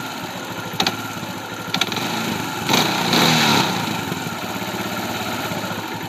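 Kawasaki Bayou ATV's single-cylinder four-stroke engine idling, with a sharp knock about once a second and a brief blip of the throttle about three seconds in. The owner suspects an engine knock that comes at low idle and more with a little gas, though the timing chain is snug and the timing is set, and he doesn't know whether it is a fault or just how the engine sounds.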